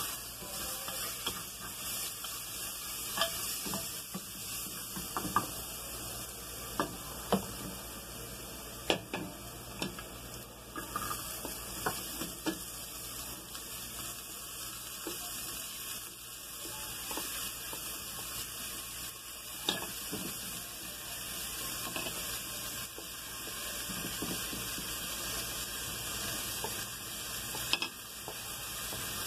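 Chopped seasonings sizzling in hot oil in an aluminium pressure-cooker pot, with a steady hiss and a wooden spoon knocking and scraping against the pot as it is stirred. About halfway through, chopped tomato, pepper and herbs are tipped in from a plate and stirred through.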